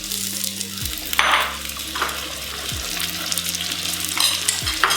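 Onion, ginger and garlic masala sizzling in hot oil in a pan, with tomatoes just added, and a spoon scraping as it is stirred a few times.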